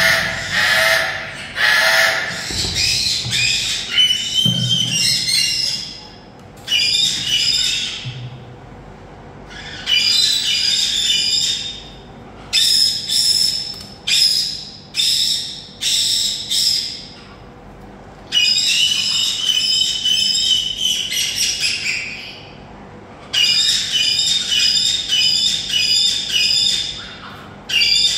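Eclectus parrot chick squawking in repeated runs of rapid harsh calls, each a few seconds long with short pauses between, while it is held and handled.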